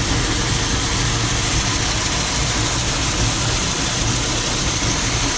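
Grain bin unloading equipment, the elevator and underfloor auger, running steadily with a constant mechanical hum and hiss.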